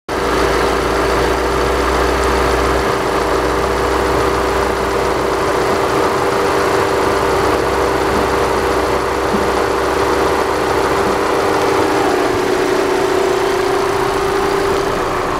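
2008 Audi A4 B8's 1.8 TFSI turbocharged four-cylinder petrol engine (code CDHB) idling steadily.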